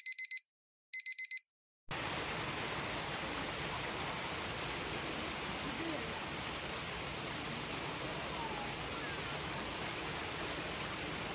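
Two quick groups of four high electronic beeps, alarm-clock style, in the first second and a half. After them, a steady, even rushing noise like running water fills the rest.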